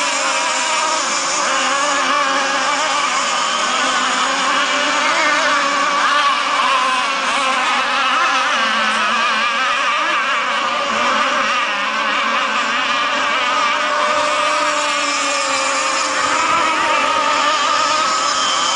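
Gas-powered radio-controlled racing boats running flat out, their small two-stroke engines making a steady, high-pitched buzz whose pitch wavers up and down as the boats pass and turn.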